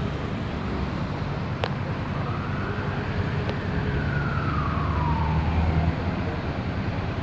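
An emergency-vehicle siren makes one slow wail, rising in pitch and then falling away over about three seconds. A steady low vehicle engine rumble runs underneath and cuts off about six seconds in.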